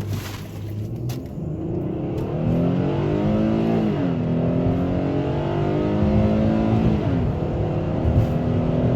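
Ford Flex's naturally aspirated 3.5-litre V6 accelerating at full throttle. The engine note rises in pitch and drops sharply twice, about four and seven seconds in, as the transmission shifts up, over steady road and tyre noise.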